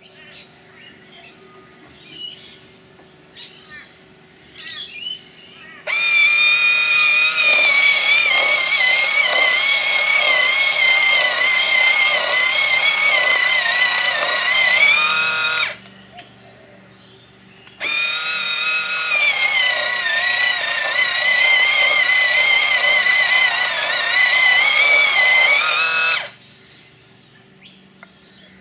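Electric milling pencil sharpener running twice, about nine seconds each with a short pause between: a high motor whine whose pitch wavers and sags while the cutter works the pencil, then rises just before it stops. A few small clicks come before the first run.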